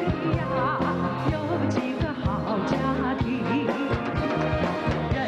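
A woman singing into a microphone with a wavering vibrato, backed by a live band with a steady drum beat.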